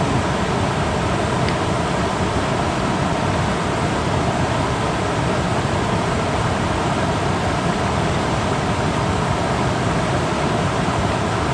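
Steady, loud rush of fast-flowing water from a small creek swollen by heavy rain.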